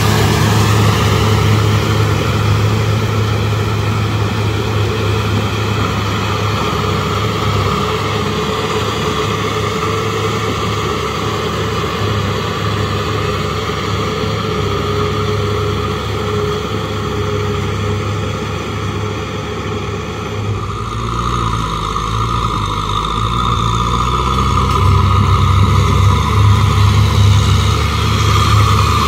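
Kubota M6040SU tractor's four-cylinder diesel engine running steadily while the tractor tills and pushes flooded, muddy paddy soil. The engine's tone changes about two-thirds of the way through and grows louder near the end.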